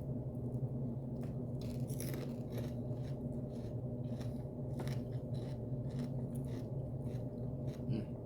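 Crunchy chewing of a celery stick close to the microphone, a string of irregular crisp crunches, over a steady low hum.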